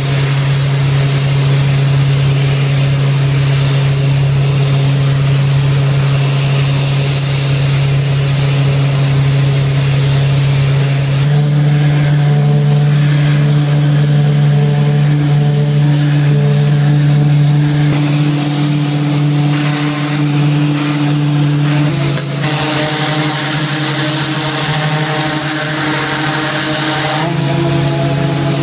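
Large show machines' engines running at a loud, steady drone with a jet-like roar. The deep hum shifts slightly in pitch about eleven seconds in and again around twenty-two seconds in.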